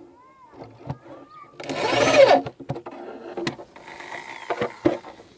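A power screwdriver driving screws to fix the crossover (network) plate into a wooden speaker cabinet: a short whir of under a second about two seconds in, with clicks and knocks of the screws and plate being handled around it.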